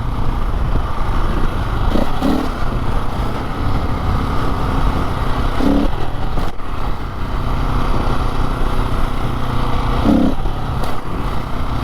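Dirt bike engine running steadily while riding along a rough gravel road.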